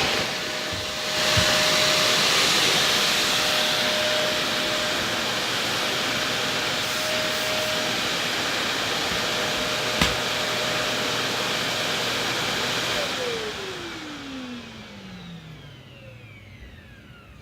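Shark Navigator upright vacuum cleaner running on a rug with a steady whine, a single sharp knock about ten seconds in. About thirteen seconds in it is switched off and its motor winds down in a long falling whine.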